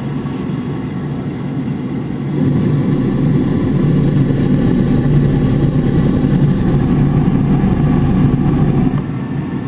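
Oil furnace burner running steadily, a low even roar of the oil flame and burner motor and fan. It is nice and quiet sounding, with no erratic behaviour, after a new nozzle and reset electrodes. It gets noticeably louder from about two and a half seconds in until near the end.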